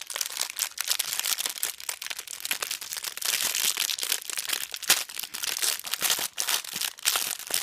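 Clear plastic bag crinkling and crackling continuously as hands pull at its sealed top to open it.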